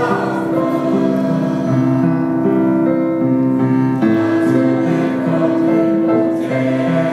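A mixed choir of men and women singing long, held chords with grand piano accompaniment. The chords change every couple of seconds.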